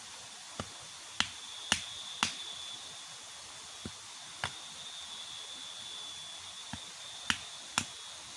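Sharp knocks or snaps at irregular intervals, about nine of them, some in quick pairs. Under them is a steady hiss with a thin high-pitched hum.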